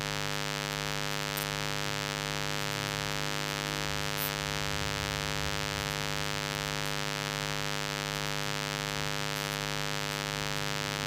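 Steady electrical mains hum: a constant buzzing drone made of many evenly spaced tones, unchanging throughout.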